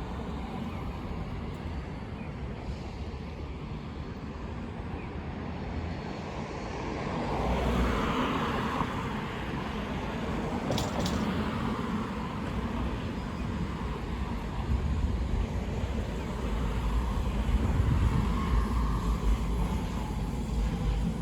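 Busy city traffic noise with vehicles passing: a steady rumble that swells as a vehicle passes about eight seconds in. Two short sharp clicks come near the eleven-second mark, and a heavier low rumble builds from about fifteen seconds on.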